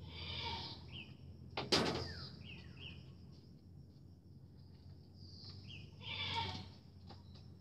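An animal calling three times, each call short and harsh, the second one loudest and coming sharply about two seconds in. Faint short high chirps come between the calls.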